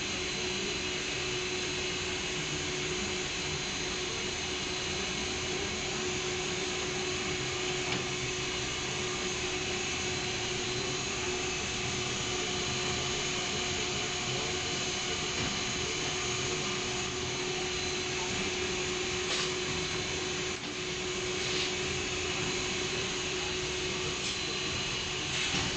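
Industrial furnace running: a steady, even hiss with a constant hum underneath, and a few faint ticks.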